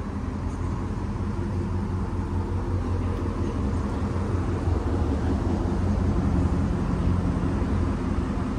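Pickup truck engine idling steadily, a low even hum that swells slightly a little past the middle.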